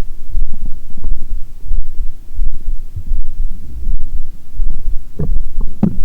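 A human heartbeat picked up close, a steady low thudding beat, with two short gurgles of stomach growling near the end.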